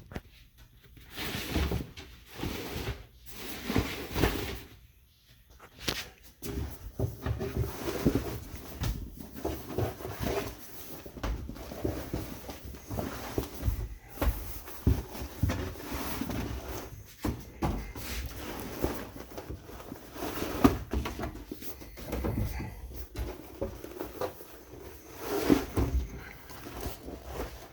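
A freshly sewn upholstery cover being pulled and fitted over a boat's engine box: irregular rustling and rubbing of the material with scattered knocks and thumps.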